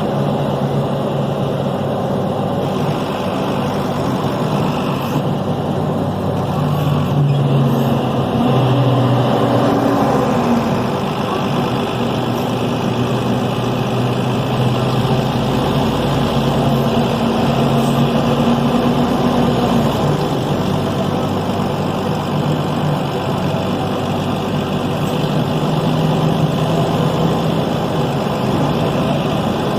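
Deutz BF6M 1013 inline-six turbodiesel of a Tatsa Puma D12 city bus running, its engine note climbing and falling back about three times as the revs rise and drop.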